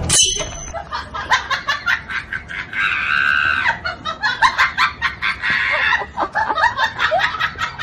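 A person laughing hard in quick, breathy bursts, rising to a higher squealing stretch about three seconds in.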